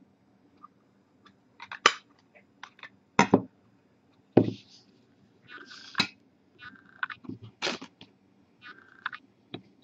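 Trading card being handled into a clear plastic sleeve and a hard magnetic card holder: irregular clicks and taps, about half a dozen, with soft plastic rustling between them.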